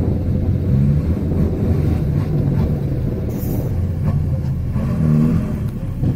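Diesel dump truck engines running, with a low rumble, as the trucks tip their beds to dump fill. One engine revs up briefly about five seconds in.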